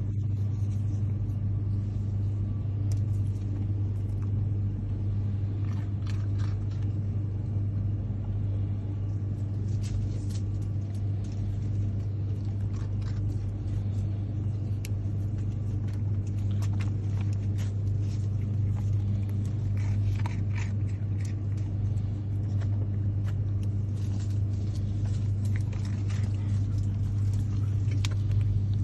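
A steady low mechanical hum with scattered faint clicks.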